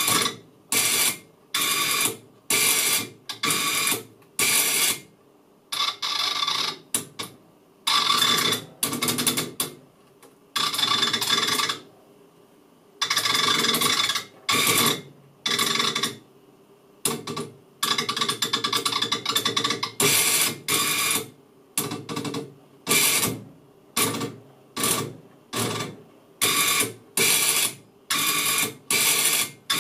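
Electric servo actuator of a Tornado-S missile's vane control driving the fin back and forth, a mechanical whirring that starts and stops in short runs, mostly about one a second, with a few longer runs of one to two seconds.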